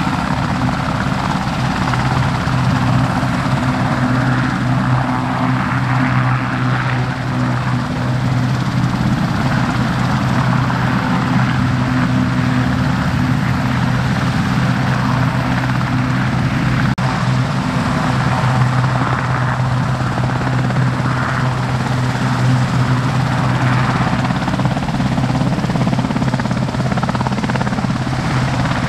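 Westland Sea King helicopter hovering low, its rotor and twin Rolls-Royce Gnome turboshaft engines running steadily, with a brief break in the sound a little past halfway.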